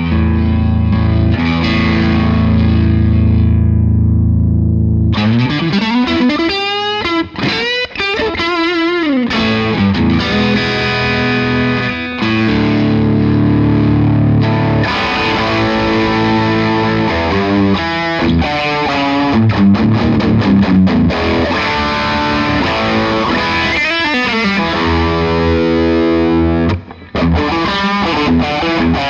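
Electric guitar played through the Iannucci Audio King of Tone pedal's overdrive channel, its knobs at noon, into a Bogner Shiva tube amp. A held chord rings out for about five seconds, then bent lead notes and riffs follow. The overdrive is mild and fairly transparent, not as mid-heavy as a Tube Screamer.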